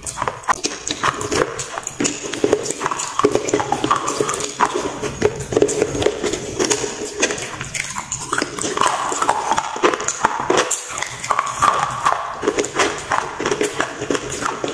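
Close-miked crunching and chewing of water-soaked slate pencils: a dense, continuous run of sharp crunches and crackles.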